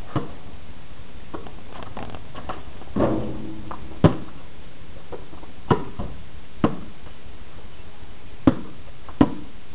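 Basketball bouncing on a concrete driveway: about seven sharp thuds at uneven intervals over a steady hiss.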